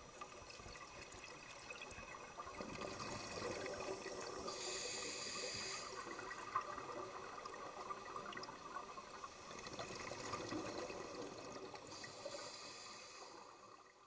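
Scuba diver breathing underwater through a regulator: the hiss of inhaling and the gurgle of exhaled bubbles, rising and falling twice.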